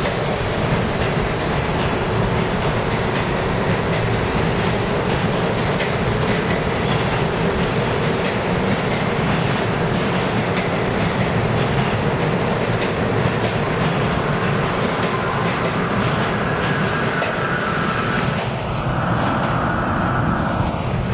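New York City subway train running past along a station platform, its wheels loud on the rails, with some wheel squeal. About three seconds before the end the sound cuts abruptly to a steadier train noise with a high ringing tone in it.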